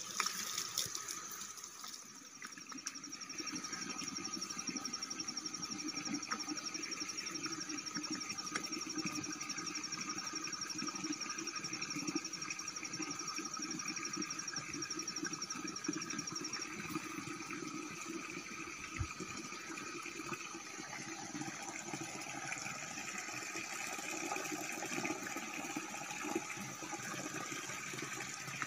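Water running steadily from an outdoor pipe spout. A high, rapid pulsing trill sounds over it from a couple of seconds in until about halfway.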